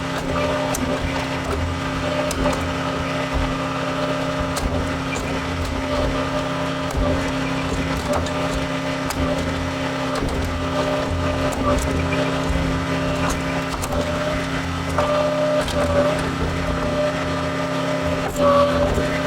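John Deere 410 backhoe loader's diesel engine running steadily as it works, with a higher whine that grows louder now and then, most of all near the end, and a few light clicks.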